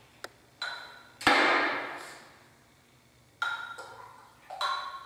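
A glass pitcher clinking against the rim of a drinking glass a few times as water is poured in, each clink leaving a short ringing tone; the loudest comes about a second in.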